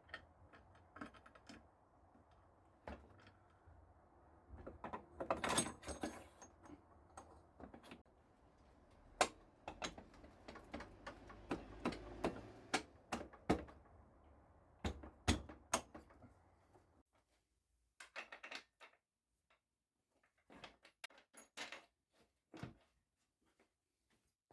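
Faint clicks and knocks of hand tools and metal parts being handled while a motorcycle wheel is refitted, over a low steady hum. About two-thirds of the way through the hum stops, and only occasional clicks remain.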